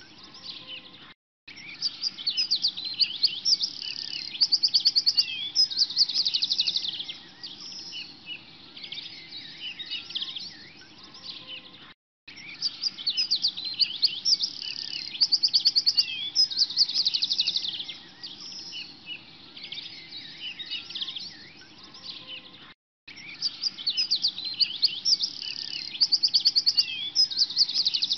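Looped birdsong ambience track: many small birds chirping and whistling, with a fast trill in each pass. The loop cuts out briefly and restarts about every 11 seconds.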